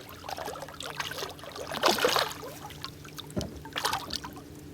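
Hooked flathead catfish thrashing at the surface beside the boat, water splashing in irregular bursts, the biggest about two seconds in.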